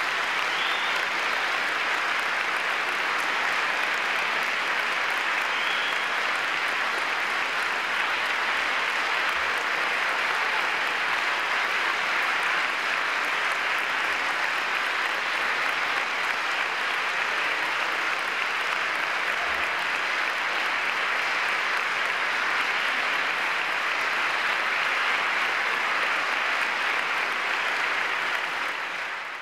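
Audience applauding steadily at the end of a concert band and choir performance.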